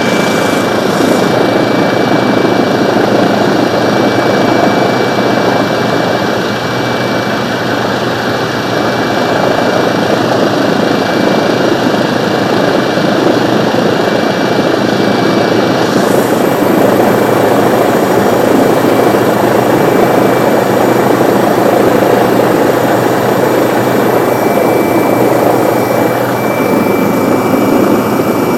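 Helicopter cabin noise in flight, heard from inside: the loud, steady din of the rotor and engines with a constant high whine running through it.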